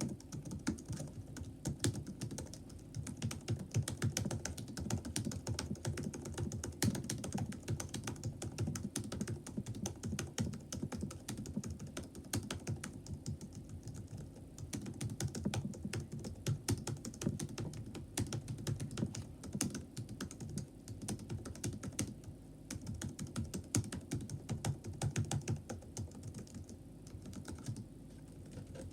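Continuous typing on a Chromebook's built-in laptop keyboard: a dense, rapid stream of soft key clicks, with a few brief lulls.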